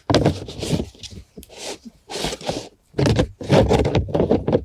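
Plastic screw-in door of a compost tumbler scraping and grating against its threaded opening in a run of irregular strokes as it is forced to turn shut; the door is awkward to screw closed.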